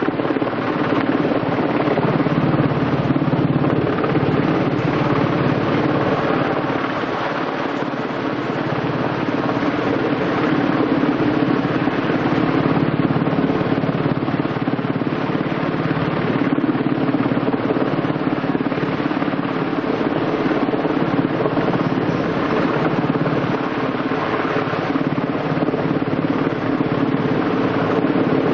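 Helicopter hovering overhead with a spire hanging on a line beneath it: steady rotor and engine noise.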